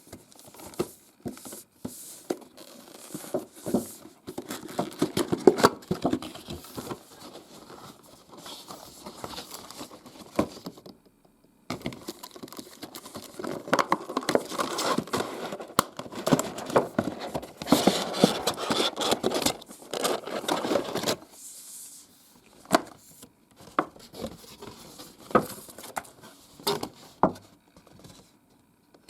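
Cardboard box and plastic packaging being opened and handled, crinkling, rustling and tearing, with many small clicks and taps. There is a short break about eleven seconds in, the loudest crinkling comes in the middle stretch, and it thins to scattered taps near the end.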